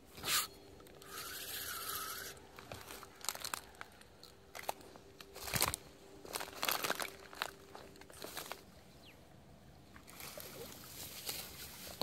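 Irregular rustling, scraping and clicking from handling a spinning rod and reel, with a sharp knock about half a second in and clusters of clicks through the middle.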